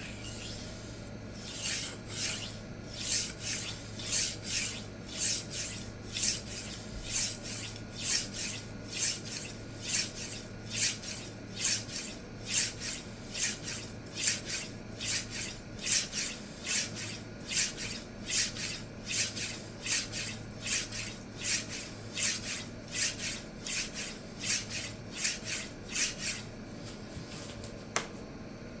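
Steel chef knife blade stroked back and forth on a resin-bonded diamond sharpening stone, a steady scraping of about two strokes a second, raising the edge before deburring. The strokes stop shortly before the end, and a single click follows.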